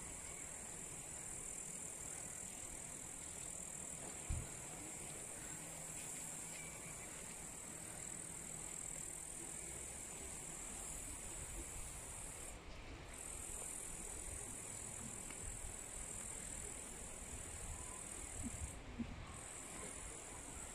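Steady high-pitched buzzing of insects, breaking off briefly twice in the second half, over a faint low outdoor rumble, with a soft knock about four seconds in.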